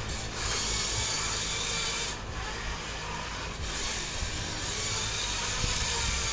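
Small radio-controlled drift car running on a smooth hard floor: a steady electric whir with tyres scrubbing as it slides, easing off briefly about two seconds in and again about three and a half seconds in.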